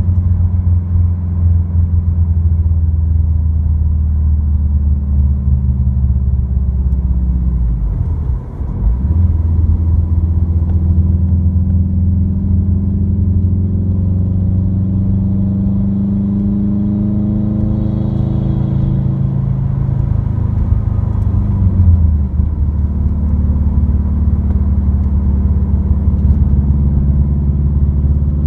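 Subaru WRX's turbocharged flat-four through an Invidia dual N1 exhaust, heard inside the cabin while cruising: a steady low drone. It dips briefly about eight seconds in, rises in pitch through the middle, and drops back a little after two-thirds of the way.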